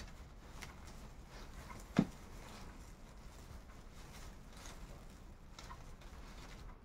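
Faint rustling and crackling of raffia paper yarn being handled as a handle is hand-sewn onto a raffia bag with a needle, with one short knock about two seconds in.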